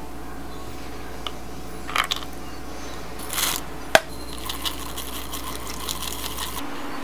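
Small kitchen clinks of a measuring cup and spoon, with one sharp clink about four seconds in. A couple of seconds of light pattering follow as sesame seeds are sprinkled into a mixing bowl of dressing.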